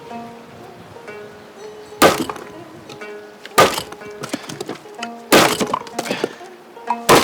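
Four heavy chopping strikes of a knife on a wooden cutting board, about a second and a half apart, over background music of a Korean traditional orchestra.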